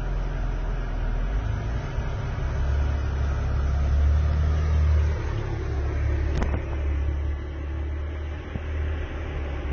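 Ferrari Purosangue prototype's V12 engine running with a low rumble as the car moves slowly, swelling for a few seconds before easing off. A single sharp click about six seconds in.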